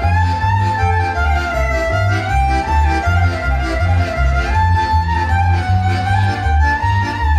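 Polish highlander (góralska) folk band playing a lively tune: fiddle melody over a bass part pulsing about twice a second.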